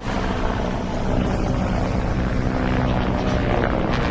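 Motorcycle engine running steadily at speed, starting abruptly.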